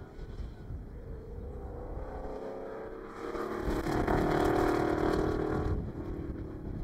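Off-road race truck's engine running under power as it drives up and passes close by on a dirt track, loudest from about three to six seconds in with a hiss of tyres on loose dirt, then falling away as it moves off.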